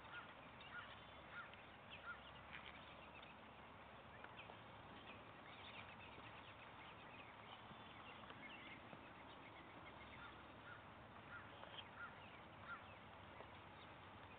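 Faint outdoor quiet with short calls of distant birds, a few per second, in two spells: one at the start and one about eleven seconds in.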